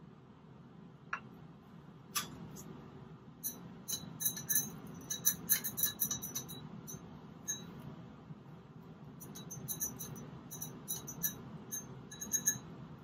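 A glass stirring rod clinking against the inside of a beaker while stirring acid into a sodium hydroxide extract, as the carboxylic acid is brought to precipitate. A couple of single clinks come first, then two spells of quick, irregular, ringing clinks with a short pause between.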